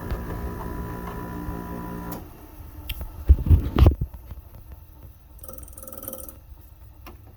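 Dehumidifier running with a steady hum and a thin whine, then cutting off suddenly about two seconds in. A few heavy low thumps follow about a second later.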